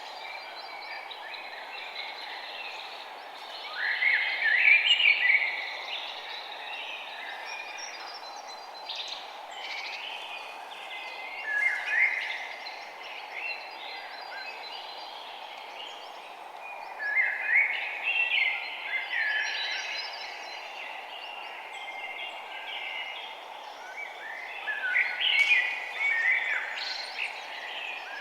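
Several songbirds chirping and trilling in short bursts, with a few louder flurries spaced several seconds apart, over a steady background hiss.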